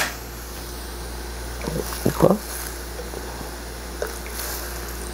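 Soy sauce poured from a bottle into a pan of chicken simmering in broth, over a steady low hum, with a few brief handling sounds about two seconds in.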